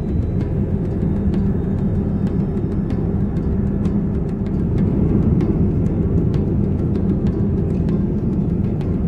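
Steady low rumble of a jet airliner.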